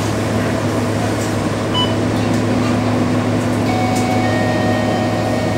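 Scania K230UB bus with a DC9 diesel engine cruising at speed, heard from inside the passenger cabin: a steady low engine drone with road noise. A faint high whine comes in about two-thirds of the way through.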